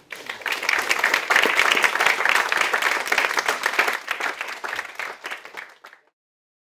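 Audience clapping in applause, a dense patter of many hands that starts at once, thins out after about four seconds and stops abruptly about six seconds in.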